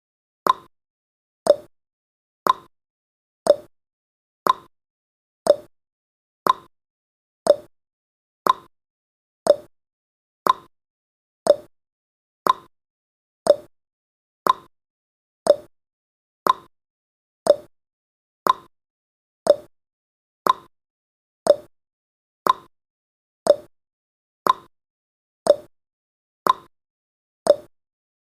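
Countdown timer's tick sound effect: a short, sharp tick once every second, with silence between ticks.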